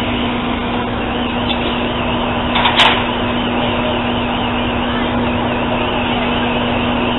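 Steady drone of fire apparatus engines running on the fireground, with a constant hum throughout. A brief sharp click about three seconds in.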